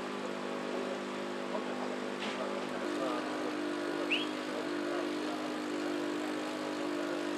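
An engine idling steadily, a low droning hum whose pitch pattern shifts slightly about three seconds in. A short high squeak sounds about four seconds in.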